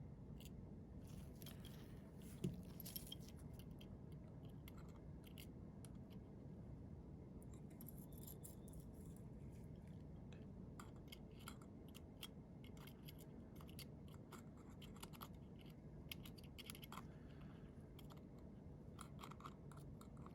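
Faint, scattered small clicks and scratches of tweezers and a small screwdriver handling tiny screws and parts inside an opened iPhone 7, with one sharper tap about two and a half seconds in, over a low steady hum.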